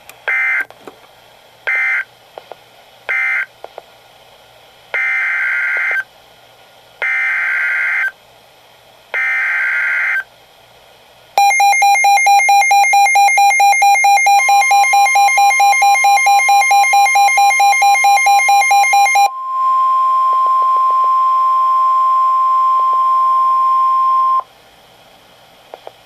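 NOAA Weather Radio alert data and tones played through a Midland weather alert radio. First come three short SAME digital data bursts, typical of an end-of-message signal, then three longer one-second SAME header bursts that encode a new severe thunderstorm warning. After these the radio's own fast pulsing alarm beeps start, joined by the steady 1050 Hz NWR warning alert tone, which holds for about ten seconds and cuts off.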